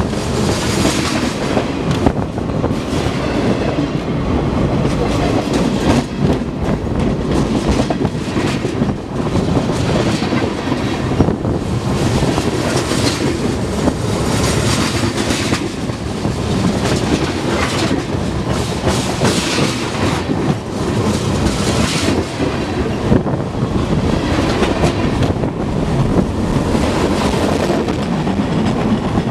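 Freight cars of a manifest train rolling directly overhead on steel rails: a loud, steady rumble of wheels on rail, with repeated clicks and knocks as the wheel sets pass.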